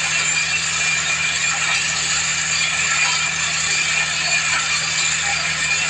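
Water-well drilling machine running steadily, a constant mechanical din with a low hum beneath it and no change in pace.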